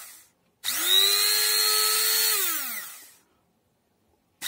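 Promotec PM590 hand blender's electric motor switched on in short bursts from its button: it spins up fast, runs at a steady high whine for about a second and a half, then winds down when released. A tail of one run is heard at the start and a new run begins at the very end. The blender is running again after its repair.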